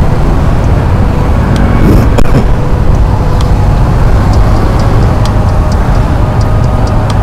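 Motorcycle riding in city traffic: a steady low engine rumble with wind on the microphone, with a brief rise and fall in pitch about two seconds in and faint scattered clicks.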